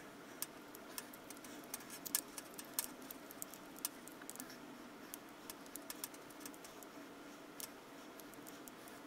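Soldering iron tip being rubbed and tapped in a metal wire-wool tip cleaner: faint, irregular clicks and light scraping, the tip being cleaned of old solder.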